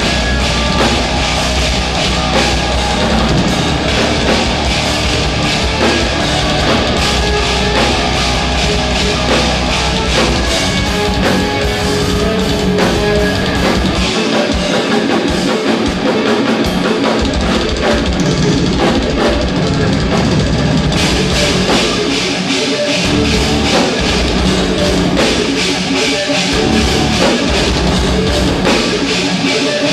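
Live instrumental progressive metal: distorted extended-range guitars over a pounding drum kit, loud and dense throughout. The deep bass and kick drop out briefly about halfway through and again a few seconds later.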